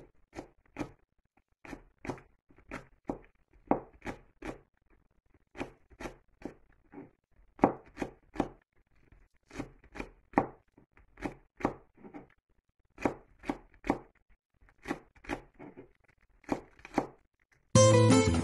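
Kitchen knife slicing a green onion against a board: crisp separate chopping strokes, about two a second, with short pauses between runs. Strummed acoustic guitar music cuts in abruptly near the end.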